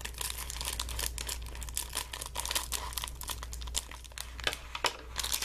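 Plastic wrapper of a stroopwafel packet crinkling as it is handled and opened, a dense crackle of small snaps with a few sharper ones near the end.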